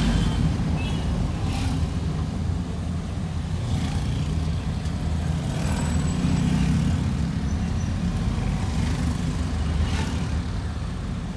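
Steady low engine and road rumble heard from inside a car's cabin while driving slowly in heavy city traffic.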